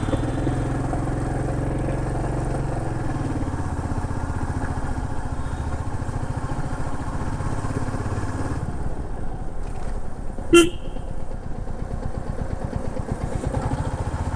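Royal Enfield Meteor 350's single-cylinder engine running steadily with its low, even thump. About ten seconds in there is one short vehicle horn beep.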